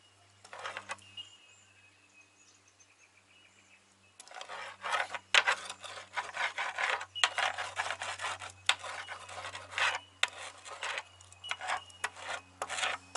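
Fiberglass laminating roller rolled back and forth over resin-soaked fiberglass cloth, making rasping strokes. There is one short stroke near the start, a pause, then quick repeated strokes from about four seconds in.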